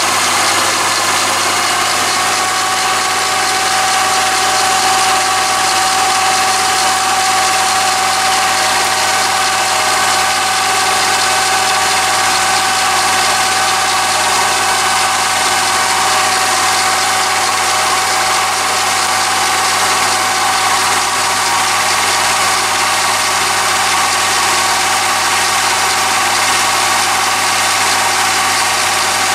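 Chinese mini lathe running steadily on power feed, its motor and feed gears giving a constant whine, while a carbide insert tool takes a turning cut along a thin mild steel spindle held between centres.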